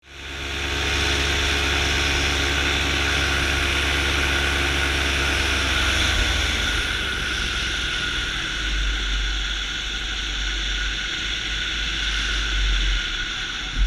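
Paramotor engine running steadily, then falling in pitch and dying out about six seconds in: an engine out in flight. After it, only wind rushing past.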